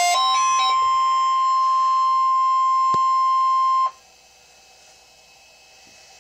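NOAA Weather Radio 1050 Hz warning alarm tone: one steady, loud single-pitch tone for about four seconds that cuts off abruptly, leaving faint radio hiss. It is the signal that an alert message is about to be read.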